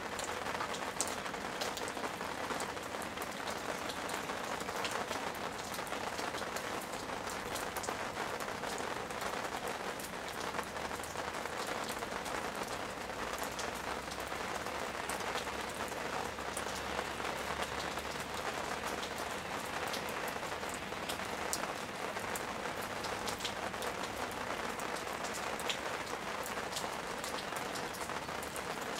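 Steady rain falling, a continuous patter with many scattered sharp drop ticks.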